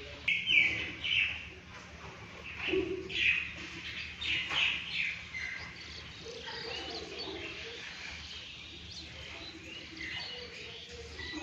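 Birds chirping in short, high calls, loudest and most frequent in the first five seconds, fewer after that.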